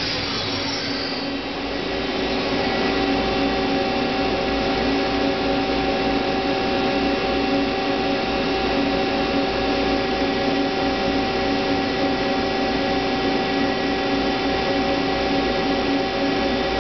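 Hyundai HiT-30M CNC turning center running: a steady mechanical hum with a whine of several held tones. The whine comes in and the level rises about two seconds in, then holds steady.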